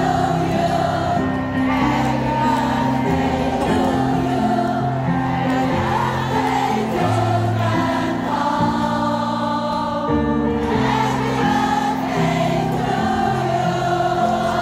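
A group of voices singing a birthday song together over sustained backing music.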